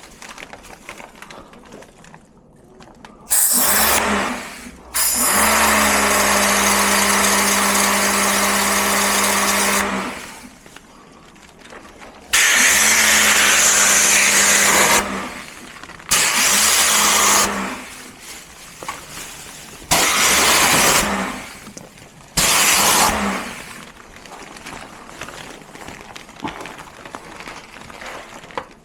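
Portable pressure washer switching on and off in six bursts of one to five seconds, a steady motor hum under the hiss of the water spray, as an air conditioner is rinsed.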